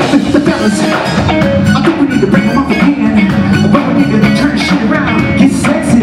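Live funk band playing, with a steady drum-kit beat under bass and keyboards.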